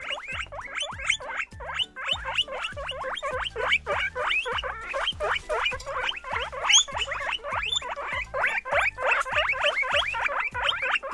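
Guinea pig squeaking in a fast, unbroken series of short upward-sliding squeaks, several a second.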